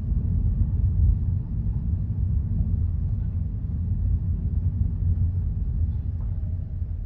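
Hyundai Elantra CN7 driving on rough road, with a steady low rumble of road and tyre noise. It eases off slightly near the end.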